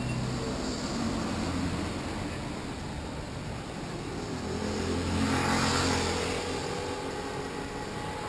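Street traffic: car engines running, with one car passing close by and loudest about five to six seconds in.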